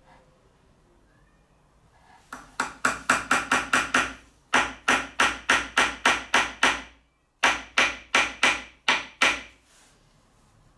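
Hammer tapping quickly and lightly on a plywood block, about five strikes a second, in three runs broken by short pauses.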